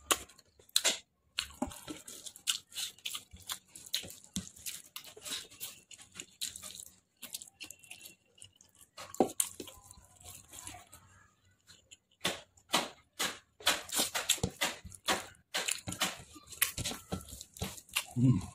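Close-up eating sounds: wet chewing and lip-smacking on a mouthful of rice and chicken, with fingers squishing curry-soaked rice on the plate. They come as irregular sharp smacks and clicks, thickest about two-thirds of the way in.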